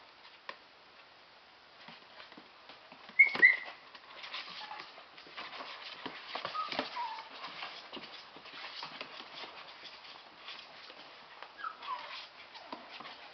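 Two Airedale terrier puppies playing and wrestling, with two short, high yips about three seconds in and a few fainter squeaky whines later. Steady rustling and scuffling of the puppies on the sheet runs under the calls.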